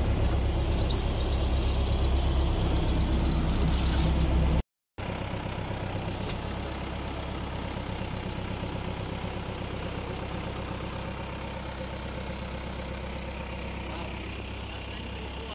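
Diesel engine of a tractor backhoe loader running steadily. It breaks off for a moment about five seconds in and comes back quieter.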